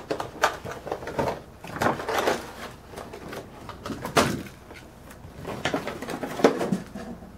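Crinkling, rustling and knocking of a thin white plastic packaging tray being handled and lifted off a toy quadcopter drone. The sounds come in irregular bursts, with the sharpest knocks about four seconds in and about six and a half seconds in.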